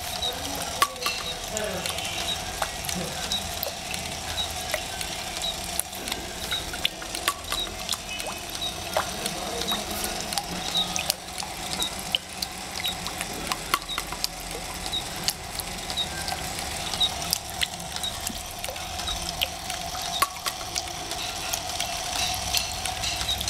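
Water splashing and trickling into a basin as a small model Pelton wheel turns, with a steady hum beneath. A light regular tick comes about twice a second, and scattered sharp clicks come from the spinning wheel and its crank-driven hammer.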